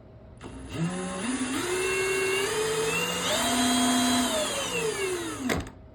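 Electric drill spinning the rotor of a Sportsman 1000 generator's alternator: the motor whine rises in steps as it speeds up, holds, climbs higher past the middle, then falls away and stops suddenly about five and a half seconds in.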